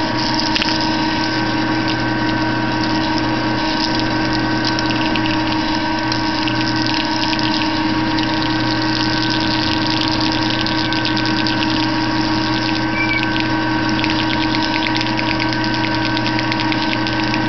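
Motor-driven wire-stripping machine running steadily as wire is fed past its splitter blade: a constant hum and whine with fine rapid ticking.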